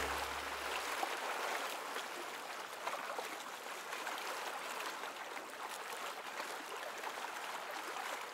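Steady rushing-water ambience, a fine hiss with small crackles like a stream or lapping shallows. The low notes of background music die away in the first second.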